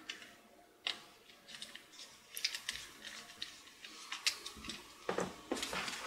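Small clicks and taps of a plastic laptop drive caddy holding a 2.5-inch SSD as it is handled and fitted, with light ticks of a small screwdriver. Scattered single clicks at first, growing busier, with a few duller knocks near the end.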